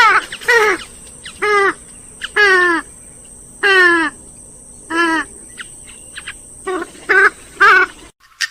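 Grey-headed swamphen calling: a series of about eight loud, short calls, each dropping in pitch, given every half second to a second. The sound cuts off abruptly just before the end.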